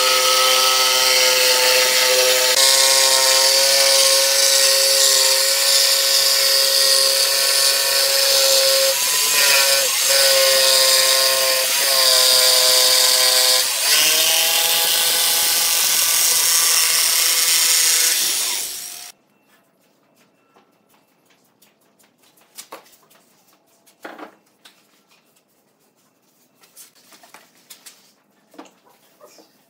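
A corded jigsaw running steadily as it cuts a curve through a thick pine tabletop, with a fizzing cutting hiss over the motor's whine; its pitch sags briefly a few times under load. It stops abruptly about two-thirds of the way through, followed by a few light wooden knocks and clicks.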